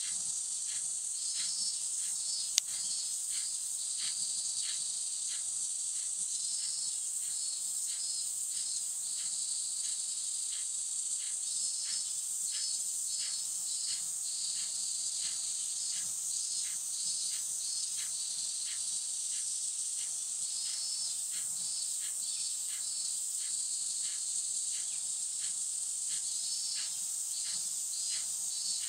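Steady high-pitched insect chorus from the trees, with short pulsed chirping calls repeating every second or so. A single sharp click about two and a half seconds in.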